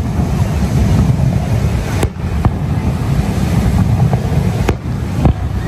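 Wind rumbling heavily on the microphone, with several sharp bangs of fireworks bursting, the loudest about two seconds and nearly five seconds in.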